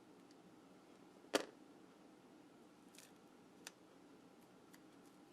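Small handling sounds of craft work with tape: one sharp click about a second and a half in, then a few fainter ticks, over quiet room tone.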